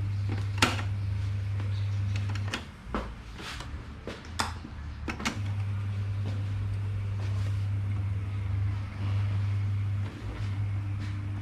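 Electric fan's AC motor humming, stopping for about three seconds and then humming again, with clicks and knocks of plastic and metal parts being handled in the gap.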